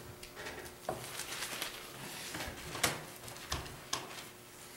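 Pages of a Bible being turned and rustled on a wooden lectern: a run of short, soft rustles and flicks, the sharpest about three seconds in, over a faint steady hum.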